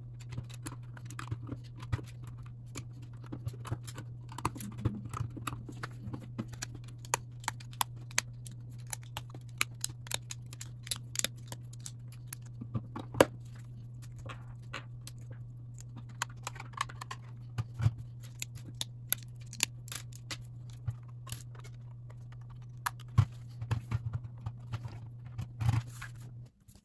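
LEGO pieces clicking and tapping as plastic bricks, plates and wheels are pressed together and picked from a loose pile on a hard table: many small, irregular clicks over a steady low hum.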